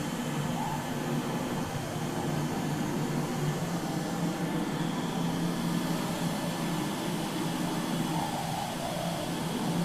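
Steady hum and hiss of the cooling machinery and fans that chill a cold room.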